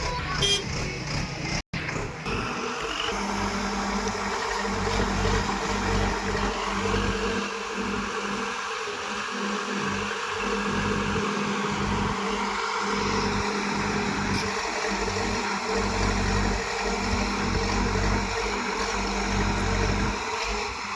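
Engine of earth-moving machinery running steadily, a continuous low rumble with a steady hum, with a brief cut-out about a second and a half in.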